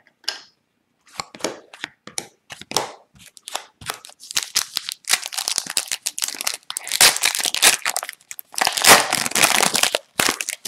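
Trading cards being flicked and handled, a few light clicks, then a foil 2021-22 Upper Deck Hockey Extended Series retail pack being torn open, its wrapper crinkling and crackling for most of the second half.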